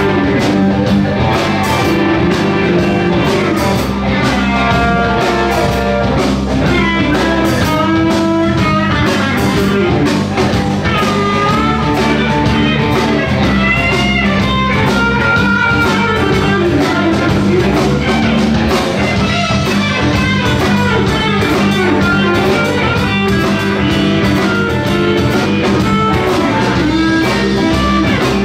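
Live blues band playing a boogie instrumental: electric guitar lead with bent notes over electric bass and a steady drum-kit beat.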